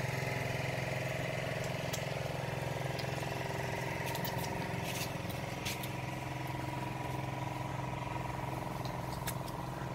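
Steady engine-like mechanical drone at an even level, with a few faint sharp clicks scattered through it.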